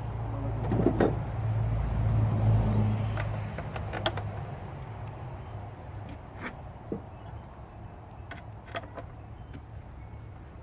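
Low rumbling hum that swells for a few seconds and then fades, with scattered sharp clicks and knocks from scooter parts being handled.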